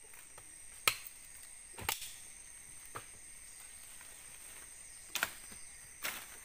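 Sharp, separate knocks or cracks, about five spaced irregularly over several seconds, like blows of a blade or wood being struck or snapped, over a steady high insect drone.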